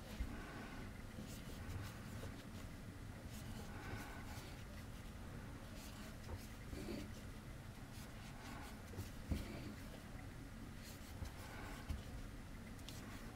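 Faint rustling and soft scratching of yarn being worked with a crochet hook, with a few light ticks.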